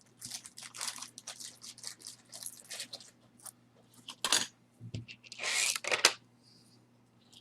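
Costume jewelry being handled: a run of small clicks and rustles as pieces are picked up and set down, with a sharp click about four seconds in and a louder rustle around five and a half seconds.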